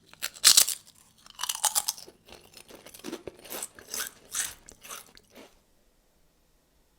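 Close-miked biting and crunching of a Kinder Surprise Maxi's milk chocolate shell, a run of crisp crunches and chews that stops about five and a half seconds in.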